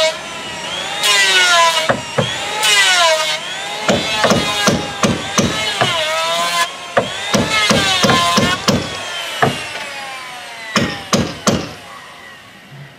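Timber being worked with hand tools: a series of rasping strokes on wood, each about a second long and ringing slightly, with runs of sharp knocks in the middle and again near the end.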